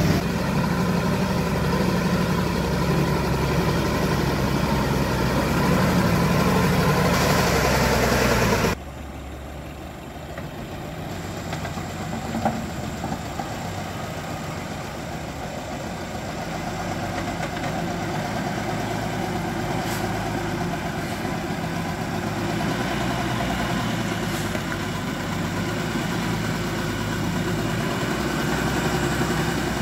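Truck engine running steadily and loudly, then dropping suddenly about nine seconds in to a quieter, steady engine hum like idling.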